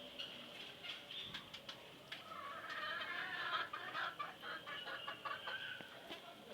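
Domestic fowl clucking and chirping, with sharp ticks mixed in; the calls are busiest in the middle.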